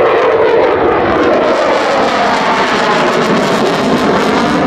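Dassault Rafale fighter jet flying a tight display turn, its twin engines in afterburner giving a loud, steady jet noise.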